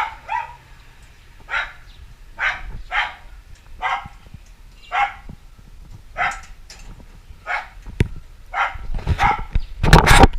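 A dog barking over and over, about one bark a second. Near the end there is a louder burst of clattering noise.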